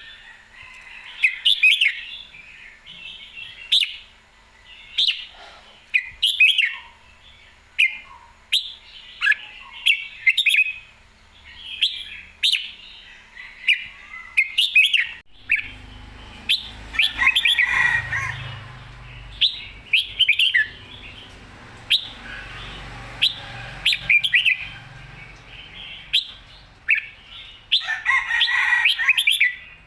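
Red-whiskered bulbul singing loudly and clearly, short bright phrases repeated every second or two. A low rumble joins underneath about halfway through.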